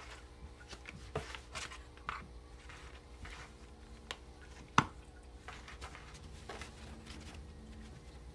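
Cat shifting about inside a cardboard box: scattered scratches and rustles of claws and fur on cardboard, with one sharp knock against the box about five seconds in.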